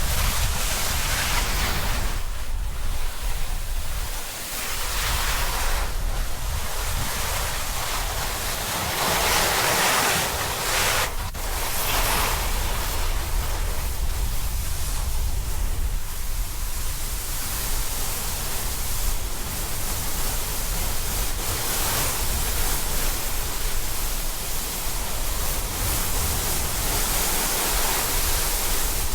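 Snowboard sliding over snow, a loud hiss that swells and fades every few seconds as the board turns and carves, with wind rumbling on the camera's microphone.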